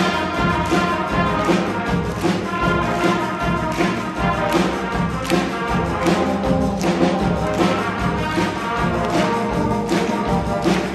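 Elementary school brass band playing a piece live: brass instruments such as trombones in harmony over a steady beat of drum hits.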